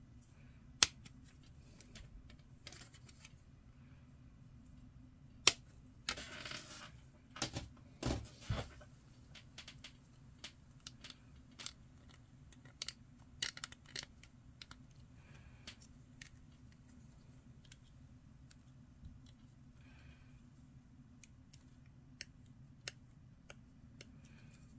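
Plastic model-kit part being cut free of its sprue: two sharp snaps about 1 and 5.5 seconds in, then a few seconds of rustling and clicking plastic. After that come small scattered clicks and light scrapes as a hobby knife trims the cut points on the plastic plate.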